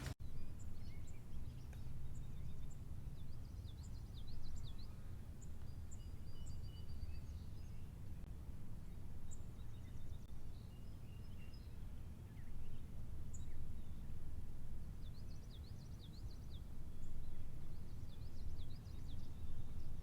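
Outdoor ambience of small birds chirping and twittering, in short calls and quick trills that come in several bursts, over a steady low rumble.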